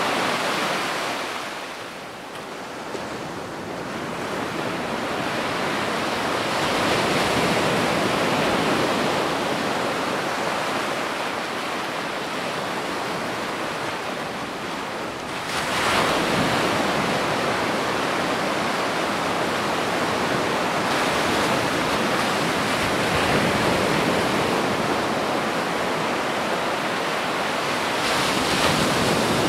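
Gentle ocean waves breaking and washing on a beach of small white rocks, a steady wash of surf that ebbs about two seconds in and swells again, with a stronger wave breaking about sixteen seconds in and another near the end.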